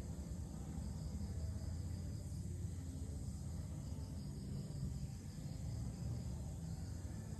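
Insects chirring steadily at a high pitch, over a louder, steady low rumble.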